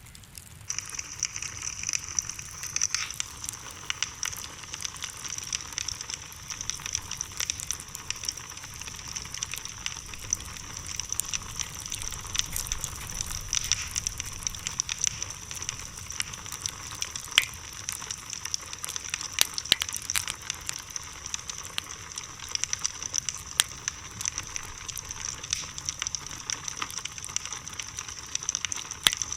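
Bonfire burning: wood crackling with frequent sharp pops over a steady high hiss.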